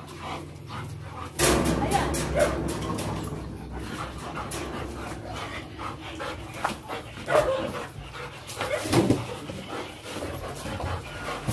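Several excited dogs, golden retrievers among them, barking and whining as they are leashed up for a walk, with a few louder barks scattered through.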